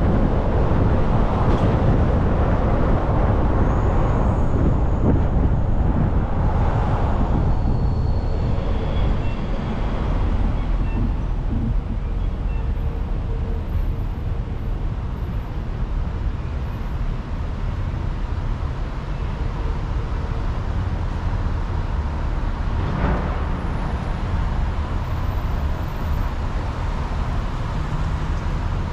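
Car driving on a city street with steady road and engine noise, which eases off about ten seconds in as the car comes to a stop at a red light, leaving lower idling traffic noise.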